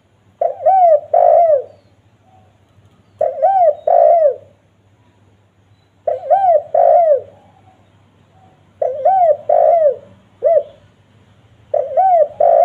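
Spotted dove cooing: five repeated phrases of two or three arched coo notes each, about one phrase every three seconds.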